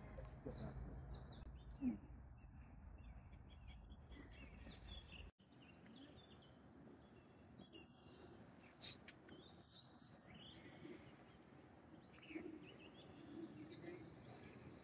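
Faint birdsong: scattered short chirps and calls from small birds over quiet background noise.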